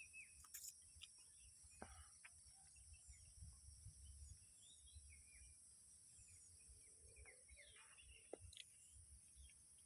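Near silence: faint outdoor ambience with a steady high-pitched insect drone and scattered faint bird chirps.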